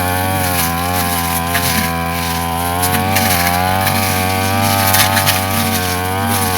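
Brush cutter engine running steadily at cutting speed, its pitch wavering slightly under load, with a few brief sharp ticks.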